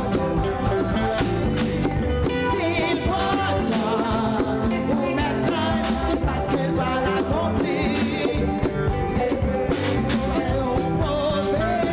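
Church worship band playing a song with drums and a singing voice that wavers in pitch.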